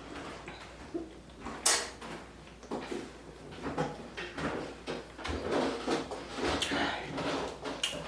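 A single sharp, loud sound about two seconds in, then a run of short gulps as carbonated soda is drunk from the bottle.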